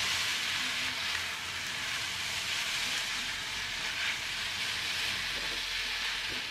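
Noodles, fried chicken pieces and chilies sizzling in hot oil in a wok while a spatula stir-fries and tosses them: a steady sizzle that swells slightly as the food is turned.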